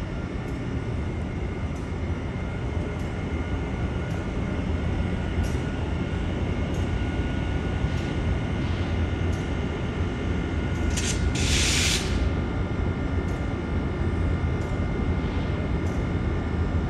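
Steady low rumble of idling trains at a station platform. About eleven seconds in comes a brief, loud hiss of compressed air from a railcar's air brake line.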